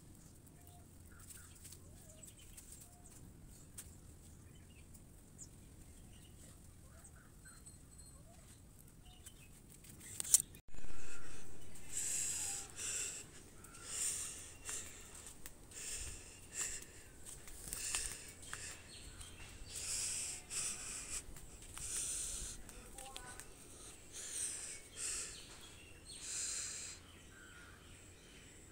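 Faint bird chirps over quiet garden ambience. About ten seconds in, a sharp knock, then footsteps crunching on dry leaves and loose earth, a little more than one step a second.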